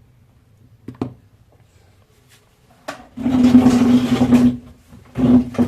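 A small motor-like whirring with a steady hum, in a burst of about a second and a half about three seconds in and a shorter one near the end, after a couple of faint clicks.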